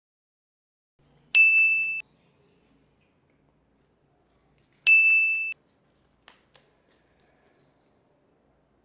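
Two identical high, steady electronic chimes about three and a half seconds apart, each ringing for under a second, fading slightly and then cutting off abruptly. A few faint clicks fall in between.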